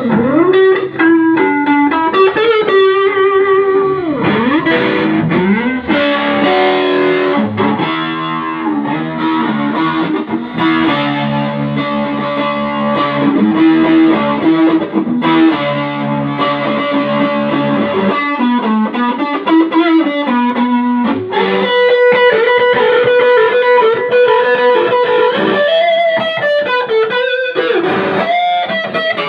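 Electric guitar played through distortion effects: melodic lead lines with sliding, bending notes in the first few seconds, then a long held note in the last third.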